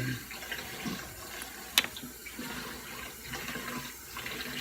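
Steady hiss of running water, with one sharp click about two seconds in.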